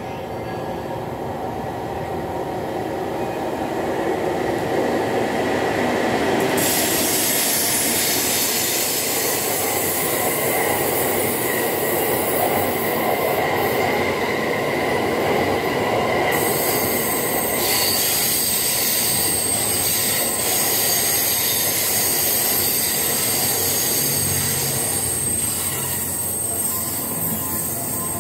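Train of E26-series Cassiopeia sleeper coaches running past on the rails: a steady rolling rumble of wheels on track that grows louder over the first several seconds and turns brighter and harsher about six seconds in. Thin high steady tones run above the rumble, typical of wheel squeal.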